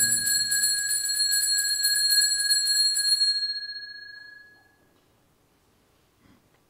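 Altar bells shaken in quick repeated strokes, rung at the elevation of the chalice during the consecration. The shaking stops about three seconds in, and the ringing fades out over the next second and a half.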